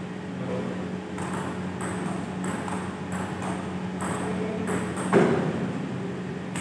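Table tennis rally: the celluloid-type ball clicking off rubber bats and bouncing on the table in a quick, uneven series of sharp ticks, with a louder thud about five seconds in. A steady low hum runs underneath.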